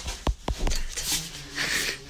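Background music with a few sharp percussive hits, then hissy swishes.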